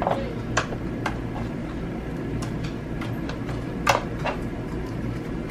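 Thick neon yellow slime being poked and pressed by fingers, giving a few sharp clicks and pops, the loudest about four seconds in, over a steady low background hum.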